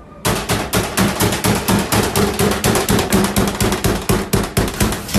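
Metal meat tenderizer mallet pounding raw meat under plastic wrap on a cutting board: a fast, even run of blows, about five or six a second.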